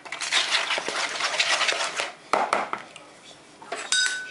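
Wooden spoon stirring and scraping a thick cream cheese filling in a mixing bowl, with a run of wet scraping strokes for about two seconds and another shortly after. Near the end there is a short ringing clink.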